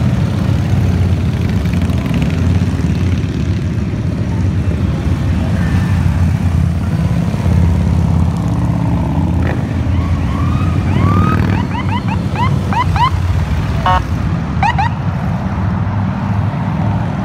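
A long line of cruiser and touring motorcycles riding past, their engines giving a steady low drone. About ten seconds in a police siren sounds a quick series of short rising-and-falling yelps for a couple of seconds, with another short yelp a little later.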